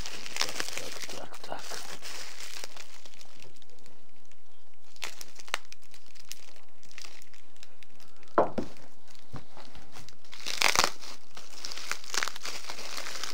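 Parcel packaging being crumpled and torn open by hand: steady crinkling and rustling, with a few sharper rips in the second half.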